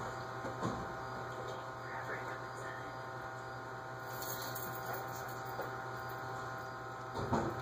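Steady electrical hum with a faint buzz in a quiet room, with a couple of brief soft sounds, once near the start and once near the end.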